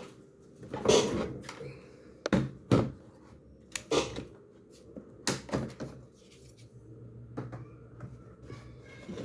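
Sharp clicks and knocks of a laptop's plastic case and parts being handled, about half a dozen in the first six seconds, then a low steady hum.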